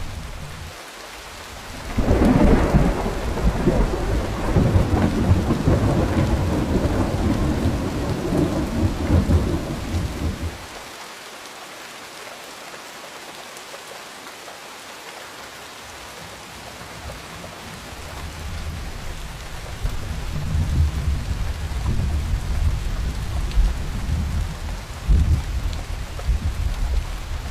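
Steady rain falling, with a roll of thunder that breaks suddenly about two seconds in and rumbles for some eight seconds before dying away. A second, lower rumble builds later, with a sharper crack near the end.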